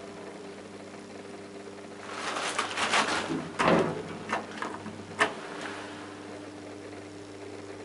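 Steady electrical hum inside an old KONE traction elevator car, with a run of clicks and rattles from about two to five seconds in that ends in one sharp click.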